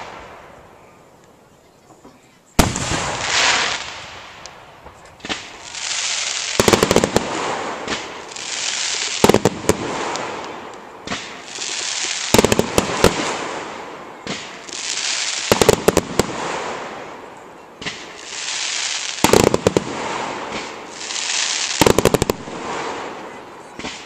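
Fireworks show: quiet at first, then a sharp bang a few seconds in, followed by repeated volleys about every three seconds. Each volley is a quick cluster of sharp cracks, with a swelling hiss between them.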